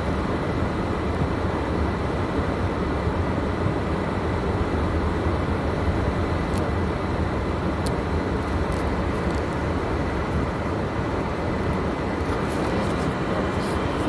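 Steady low rumble of a car driving over a snow-covered street, heard from inside the cabin, with a few faint ticks now and then.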